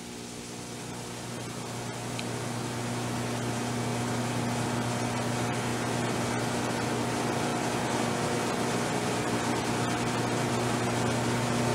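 A steady low electrical hum with an even hiss over it, slowly getting louder over the first few seconds and then holding level.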